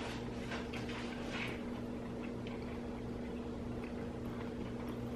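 Steady electrical hum of a quiet small room, with faint chewing and mouth noises in the first second and a half.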